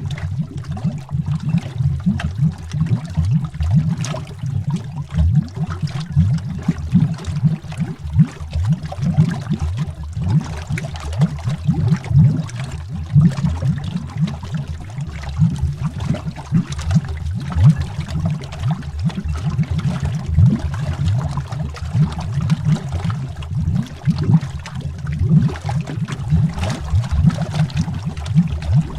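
Dense, continuous underwater bubbling: a stream of low bubble pops and gurgles.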